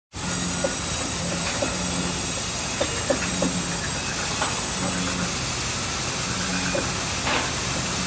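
Industrial band sawmill machinery running with a steady hiss and a hum that comes and goes, with scattered knocks and clacks as a log is handled on the saw's feed table.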